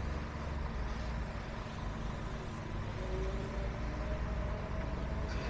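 Low, steady rumble of fork trucks and lorries running around a busy warehouse yard, with a faint whine coming in about three seconds in.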